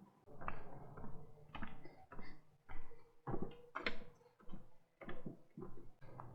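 Walking footsteps, an even row of short knocks about two a second.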